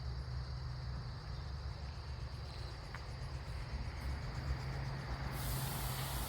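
Insects, crickets by the sound, trilling in a steady high band over a continuous low rumble. Near the end a broad hiss comes in.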